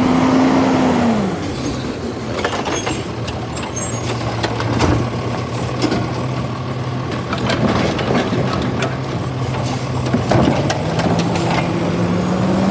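Automated side-loader recycling truck: its diesel engine slows as the truck stops about a second in, then runs steadily while the hydraulic arm lifts and tips a wheeled plastic recycling cart, with repeated knocks and clatter as it empties. The engine speeds up again near the end as the truck moves off.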